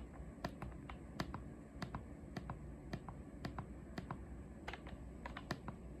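Buttons on a Yanmar air conditioner's wired remote controller being pressed: an irregular quick series of small sharp clicks over a low steady hum.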